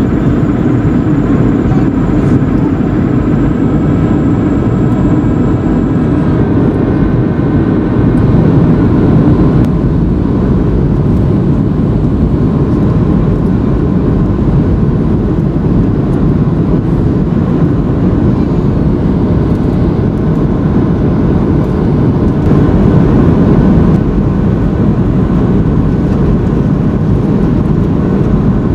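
Steady cabin noise inside a Boeing 737-600 on approach with flaps extended: the CFM56-7 engines running and air rushing past the fuselage, a loud, even noise heavy in the low end.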